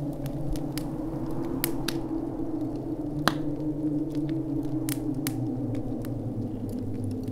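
Logo sound design: a low, sustained drone that sinks slightly in pitch about six seconds in, with sparse, irregular crackling clicks over it.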